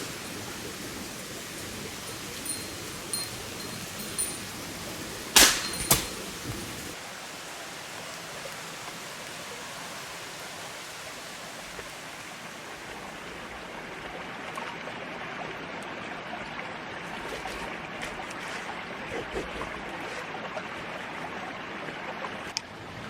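Campfire burning with a steady hiss and scattered sharp pops, the loudest a quick pair about five and a half seconds in; the hiss changes character about seven seconds in, with fainter crackles later on.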